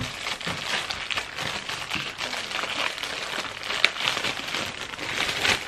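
Clear plastic bag crinkling and rustling as fingers work at opening it, with a sharp click a little before four seconds in.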